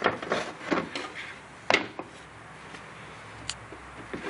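Hard knocks and clatter of a windshield wiper motor and its linkage being pulled out of the cowl, several in the first two seconds, then a faint click near the end.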